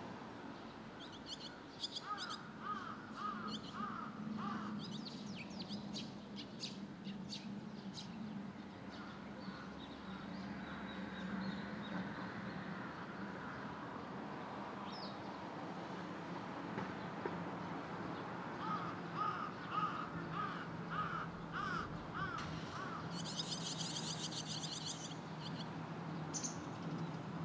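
Fledgling barn swallows on a wire giving high chirping begging calls while waiting to be fed, with a burst of rapid high twittering near the end. Two runs of lower, evenly repeated calls from another bird come a few seconds in and again past the middle, over a steady low hum.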